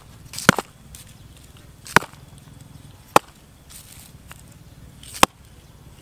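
Five sharp, separate clicks or knocks at uneven intervals, each cut short, over a faint outdoor background.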